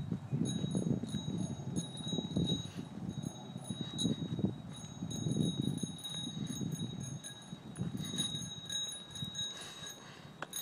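Wind buffeting the microphone in uneven gusts, with a faint, high, bell-like metallic ringing that comes and goes over it and a couple of small clicks.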